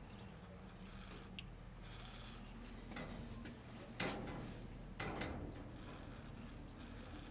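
Hand-tool work on metal parts: a few sharp clicks and scraping strokes, with ratchet-like clicking, and a short hiss about two seconds in.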